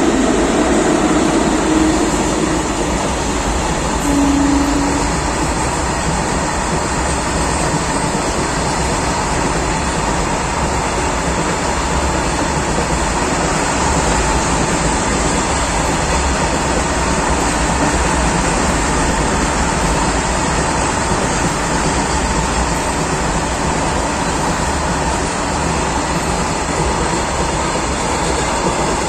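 Freight train passing close by on the platform track: an Indian Railways electric locomotive and then a long rake of covered goods wagons rolling past with a loud, steady rush and rumble.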